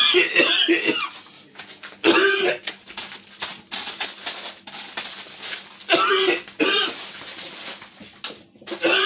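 A person coughing in several loud fits, one right at the start, then about two seconds in, around six seconds in, and again near the end.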